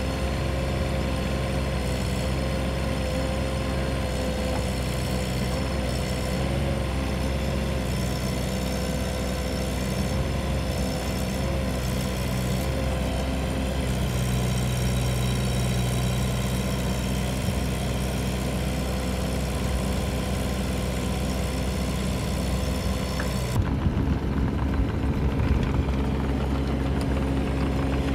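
Bobcat 319 mini excavator's diesel engine running steadily while the log grapple works, with a steady high whine over it for about the first half. About three-quarters of the way through the sound changes abruptly to a rougher, uneven engine rumble.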